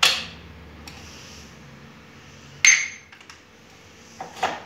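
Metal clinks and knocks as the rear monoshock's mounting bolt is worked out: a sharp clink at the start, a louder one about two and a half seconds in that rings briefly, then a few lighter knocks near the end.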